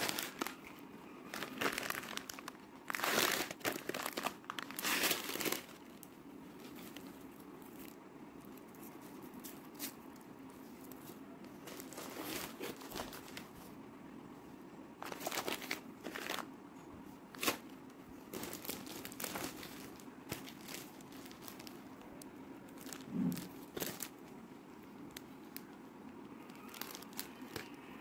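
Plastic food packets crinkling as they are handled, in irregular bursts of crackles with quieter stretches between.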